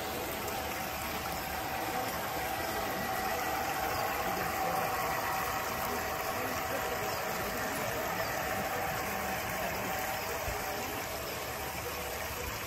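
Large-scale garden model diesel train running past on its track, a steady mechanical hum that grows a little louder about four to six seconds in as the locomotives come nearest.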